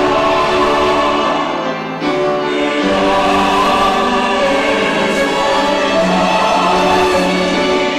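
Church choir singing held chords, with a short break between phrases about two seconds in.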